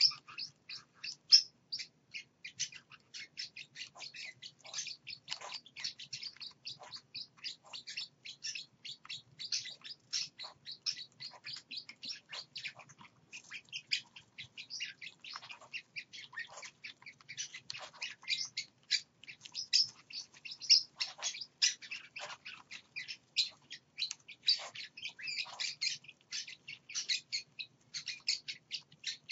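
Small caged parrots and their chicks chirping: a near-continuous stream of short, high-pitched chirps, several each second.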